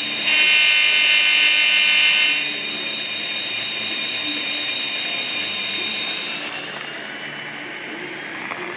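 A model train's sound unit sounds a horn for about two seconds, then a steady high whine from the running model locomotive that rises slowly in pitch as the CSX diesel model comes past.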